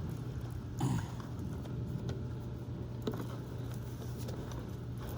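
Steady low hum of a running clothes dryer blowing through the vent, with a few faint knocks and scrapes from the vent-cleaning work.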